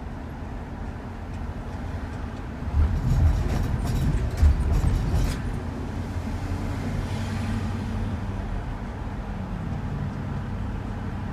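Road and engine noise heard inside a moving van: a steady low rumble, with a cluster of loud knocks and rattles about three to five seconds in.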